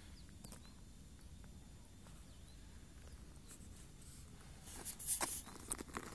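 Quiet outdoor air with a faint low rumble, then a cluster of short crackling rustles about five seconds in.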